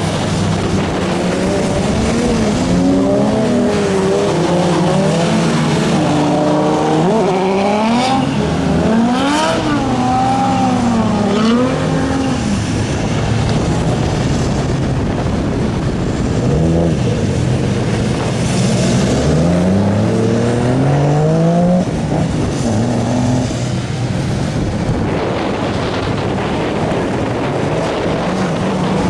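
Car engines on a race circuit, revving up and down over and over as they accelerate and lift off, with their pitch rising and falling repeatedly and sometimes more than one engine heard at once.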